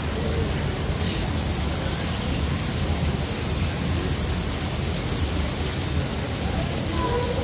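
Artificial waterfall pouring steadily into a shallow pool: a constant rushing with a low rumble underneath.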